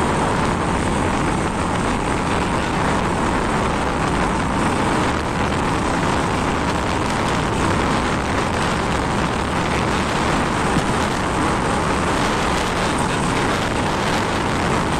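Steady rush of wind and road noise from a moving motorcycle, with its engine running underneath.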